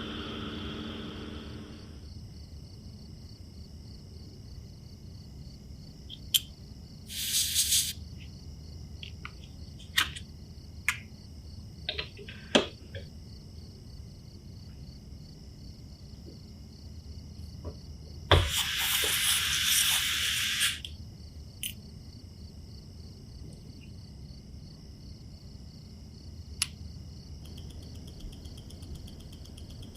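Watchmaker's bench work: scattered small sharp clicks and taps, and two short bursts of hissing, the second lasting about two seconds, over a faint steady high-pitched tone.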